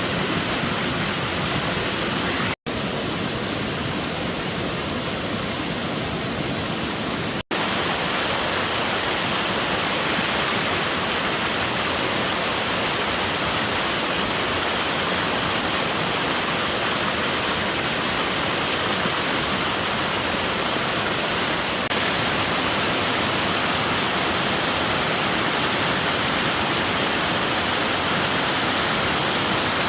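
Steady rushing of water, an even loud hiss with no rhythm, cut off abruptly for an instant twice, about two and a half seconds in and again about seven and a half seconds in.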